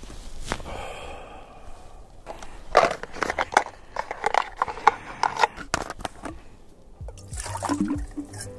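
A quick run of clicks and rattles as small camp gear is handled, then water poured from a plastic bottle into a small cooking pot near the end.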